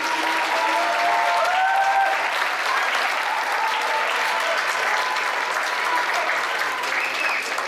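Theatre audience applauding steadily, with a few voices calling out among the clapping.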